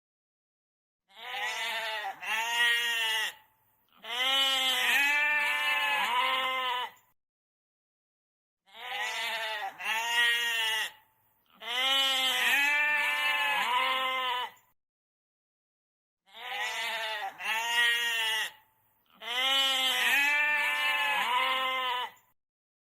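Goat bleating: a short two-part bleat followed by a long wavering bleat of about three seconds, the same sequence played three times with silence between.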